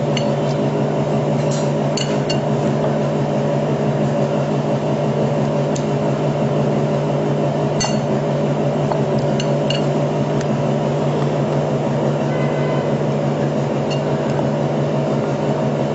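A metal spoon clinks now and then against a glass mixing bowl as spiced minced meat is scooped and pressed into bitter gourds. The clinks are scattered and sharp, over a steady low hum.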